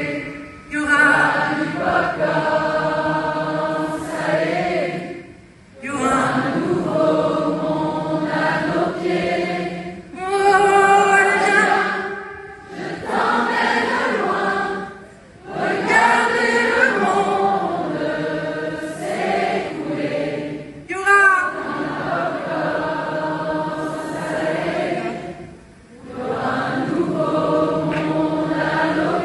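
A concert audience singing a pop song together as a crowd chorus, in sung phrases separated by short breaks.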